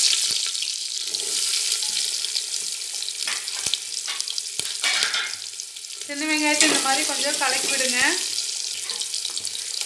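Chopped shallots sizzling in hot coconut oil with popped mustard seeds in an aluminium pot, a steady crackling hiss. A metal spoon stirs them and clicks against the pot a few times.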